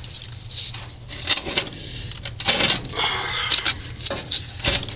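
Car battery being set into a truck's battery tray: its plastic case clicks and knocks, scrapes against the tray through the middle, and lands with a heavier knock near the end.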